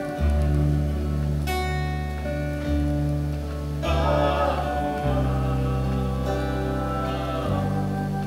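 Acoustic band playing an instrumental passage: acoustic guitar strumming chords over sustained low bass notes that change every second or two.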